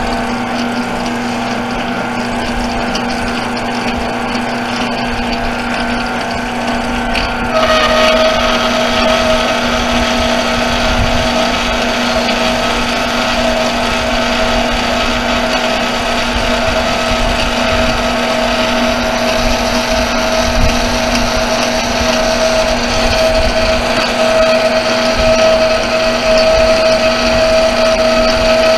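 Metal lathe running under power while machining a brake rotor hub, a steady motor and gear whine. About seven and a half seconds in, it turns a little louder and brighter, and a higher whine joins it.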